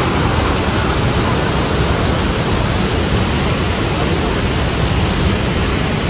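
Loud, steady rush of Dhuandhar Falls on the Narmada River: white water pouring over the rocks and churning in the gorge below.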